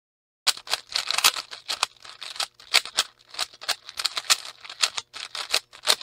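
3x3 Rubik's Cube being turned rapidly by hand: a quick, irregular run of sharp plastic clicks and clacks, several a second, starting about half a second in.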